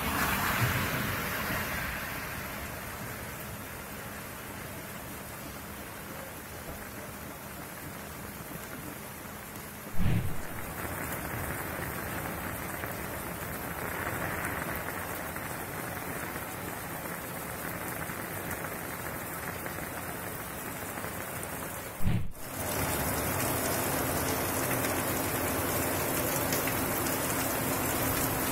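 Heavy rain pouring down onto wet, flooded pavement: a steady hiss, with two brief loud thumps, one about a third of the way in and one about three quarters of the way in.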